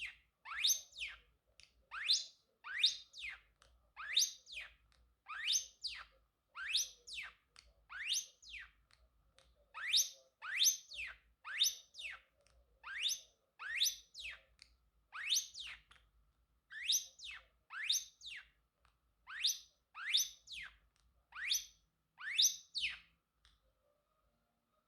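Pacific parrotlet giving a long run of repeated whistled calls, each a quick rising then falling sweep, about three every two seconds, stopping shortly before the end.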